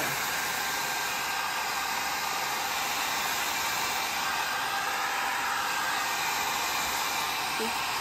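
Handheld hair dryer running steadily on its high setting, blowing air onto a price sticker on a ceramic bowl to loosen the glue.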